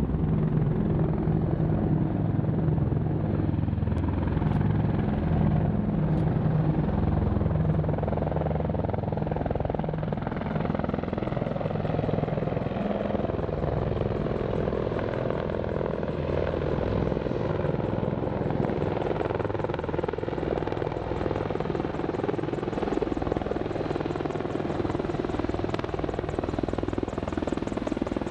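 A formation of AH-64E Apache attack helicopters flying overhead, the steady beat of their rotors and the sound of their engines running without a break.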